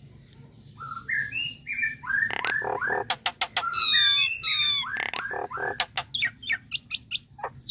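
Common myna singing a varied song that starts about a second in: short rising and falling whistled notes, high descending trills and gurgles, and quick clicks that come rapidly toward the end.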